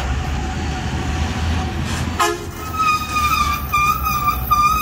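Heavy tipper truck's engine rumbling as it passes, then a loud truck horn sounding about two seconds in, one steady pitched tone repeated in about four long honks.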